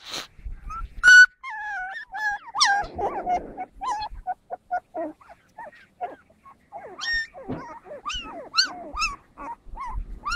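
Puppies whimpering and yipping: a rapid string of short, high-pitched cries that bend in pitch, with a sharper yelp about a second in.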